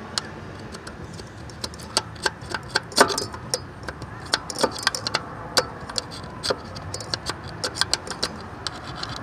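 Metal gasket scraper scraping old gasket off the thermostat housing mounting surface of a Jeep 5.2L V8: irregular sharp scrapes and clicks, two or three a second, loudest about three seconds in.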